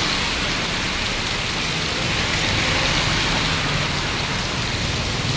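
Steady rain falling and pattering on surfaces, an even hiss that holds constant.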